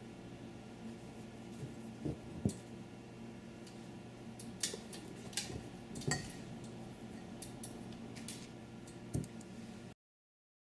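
Embroidery needle punching through fabric stretched taut in a hoop and white floss drawn through it during satin stitching: scattered sharp clicks and scratchy rustles over a steady low hum. The sound cuts off suddenly near the end.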